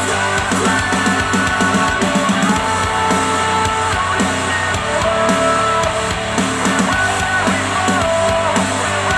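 Loud rock music with guitar, played back through a pair of Dayton Audio B452 Air bookshelf speakers driven by a Yamaha A-S301 integrated amplifier.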